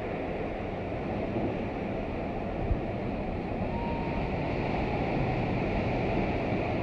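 Ocean surf breaking and washing up a sandy beach: a steady, low rush of waves, with one short thump about two and a half seconds in.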